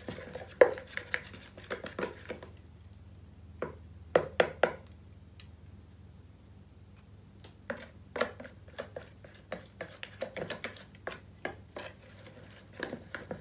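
Plastic spoon stirring white glue and yellow finger paint in a plastic mixing bowl: irregular taps, clicks and scrapes against the bowl, with three sharp clicks about four seconds in, a quiet stretch, then a busy run of small ticks.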